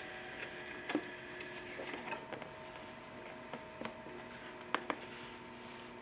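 Scattered light clicks and taps from an egg being handled and held against a candling light, over a faint steady hum.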